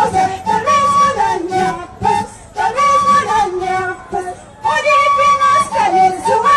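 Live Andean folk music with high-pitched singing. It comes in phrases about two seconds long, with held high notes and short breaks between them.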